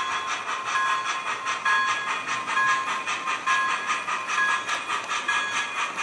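HO-scale MTH Clinchfield Challenger model steam locomotive's onboard sound system: rapid steam chuffing with a bell ringing about once a second as the engine runs.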